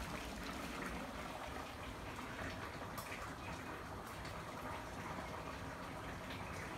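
Okra and smoked-fish stew simmering in a frying pan: a soft, steady bubbling hiss with a few faint pops.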